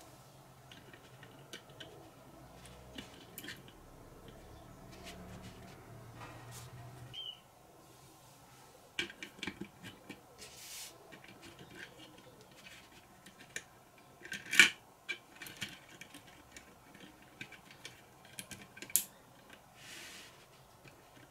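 Lego Technic plastic parts handled and pressed together by hand: a run of small clicks and knocks as pins, an axle and a gear are fitted. It is quiet for the first several seconds, and the sharpest snaps come about two-thirds of the way through and again near the end.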